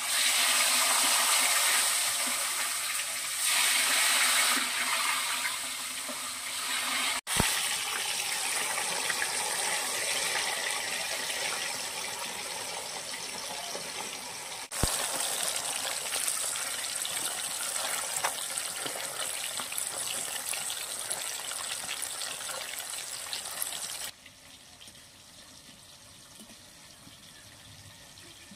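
Pieces of rohu fish sizzling loudly as they fry in hot oil in a metal wok, the hiss easing slowly, then dropping sharply to a faint sizzle about three-quarters of the way through.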